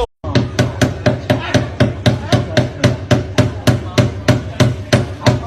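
Rapid, evenly spaced hammer blows, about five a second, keeping up an unbroken rhythm.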